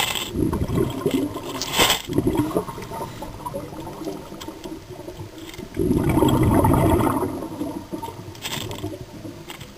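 Scuba diver breathing through a regulator underwater: short hissing inhales near the start, around two seconds and near the end, and a loud gush of exhaled bubbles about six seconds in that lasts over a second.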